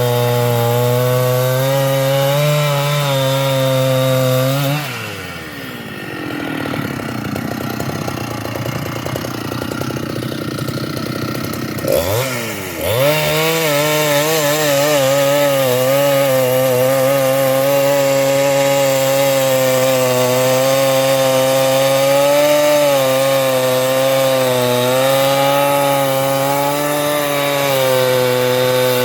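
Large two-stroke Husqvarna chainsaw running at full throttle, cutting wood. About five seconds in the revs drop and it runs lower and quieter for several seconds. About twelve seconds in it revs back up and keeps cutting, its pitch wavering slightly under load.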